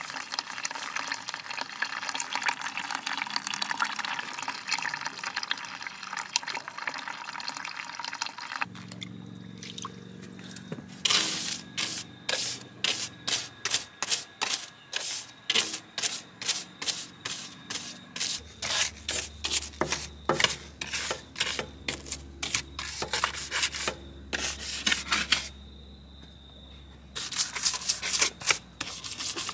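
Water running, then a long series of quick rhythmic scrubbing strokes, about two a second, with a short pause near the end.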